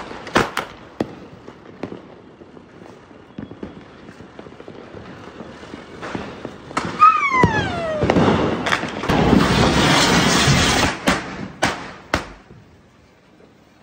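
Firecrackers and fireworks going off: scattered sharp cracks, a falling whistle about seven seconds in, then a few seconds of hissing and crackling broken by more sharp bangs.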